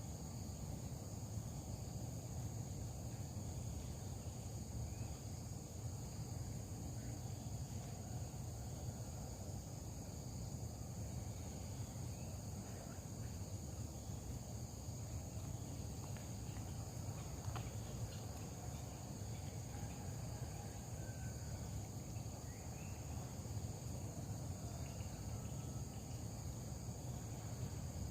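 Insects chirring in a steady high drone, over a low steady rumble of outdoor background noise.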